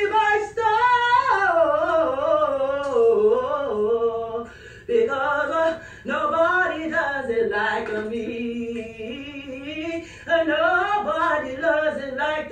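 A woman singing unaccompanied, with long held notes that slide up and down in pitch, in phrases broken by short pauses for breath about five, six and ten seconds in.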